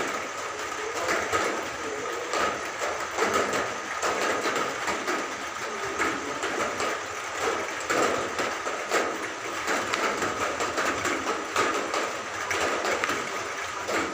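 Bar-winged prinia (ciblek) singing without a break: a fast, unbroken run of short chirps.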